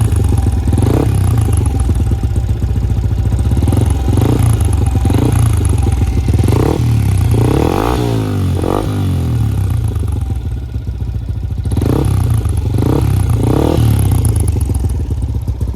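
Yamaha Sniper's single-cylinder engine breathing through a Mody 5 power pipe exhaust, idling and revved in a series of short blips, with one longer rev about eight seconds in. The pipe has a whistling issue that the owner complains of.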